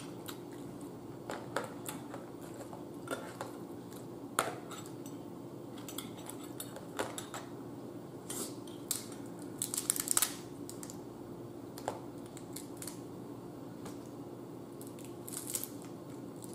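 Steamed blue crab being cracked open and picked apart by hand: scattered small snaps and clicks of shell breaking, with a quick cluster about ten seconds in.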